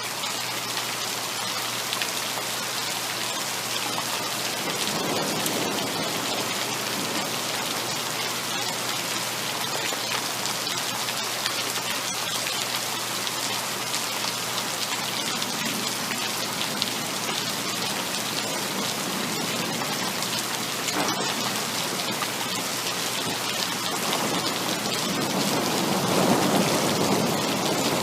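Heavy rain falling steadily, a dense patter of drops, with a low rumble of thunder swelling up near the end.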